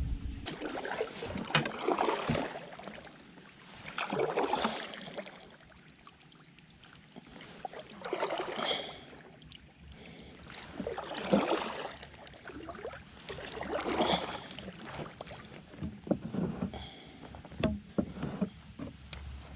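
Kayak paddle strokes: water swishing and splashing off the blade in a slow rhythm, one stroke every two to three seconds.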